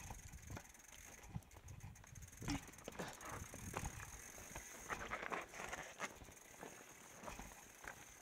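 Mountain bike rattling and knocking over a rocky trail: irregular clacks and clunks, busiest in the middle seconds.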